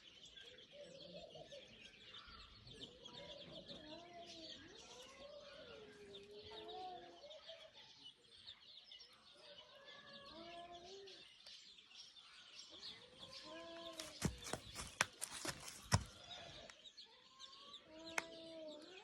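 Birds calling: many short calls that rise and fall in pitch, over steady high chirping. A cluster of sharp knocks comes about three quarters of the way through.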